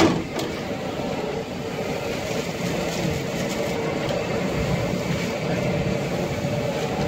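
Potato chips deep-frying in a large well of hot oil: a steady sizzle and bubbling while a wire skimmer stirs them.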